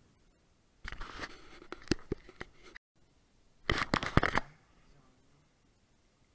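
Two bursts of close rustling and crackling with sharp clicks near the microphone: the first runs from about a second in and cuts off suddenly just before three seconds, the second is shorter and louder, at about four seconds.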